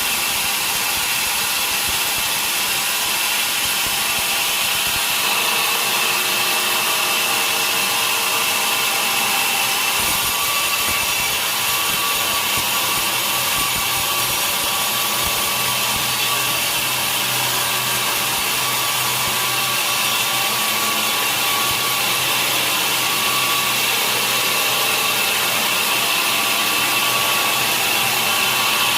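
Sawmill saw cutting steadily through a large log: a continuous, unbroken high-pitched hiss with a faint steady whine.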